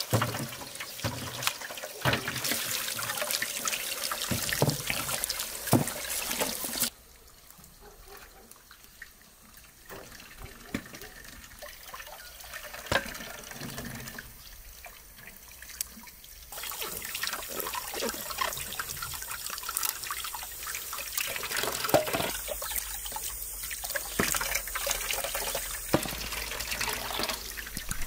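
Tap water running and splashing as vegetables and fresh herbs are rinsed by hand in a metal basin. The running water drops away for several seconds in the middle, leaving small knocks and handling sounds, then comes back.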